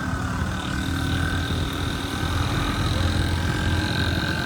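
Motorcycle engine running steadily under way, with road and traffic noise and a steady high whine over it.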